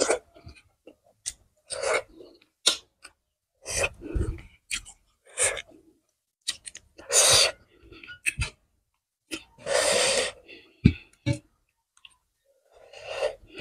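Close-up mouth sounds of eating rice and curry by hand: scattered wet clicks and lip smacks while chewing. Two longer hissing sounds from the mouth come about seven and ten seconds in.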